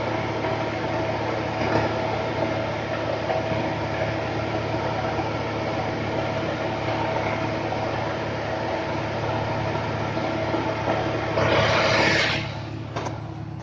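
A vehicle engine idling steadily, an even hum with a constant pitch. A brief, louder rush of noise comes about two seconds before the end, and the hum continues more quietly after it.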